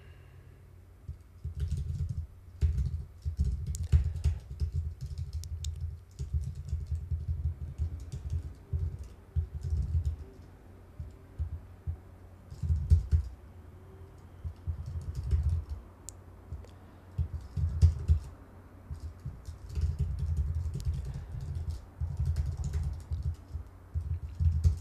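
Typing on a computer keyboard in uneven bursts with short pauses between them, each keystroke a click carrying a dull low thud.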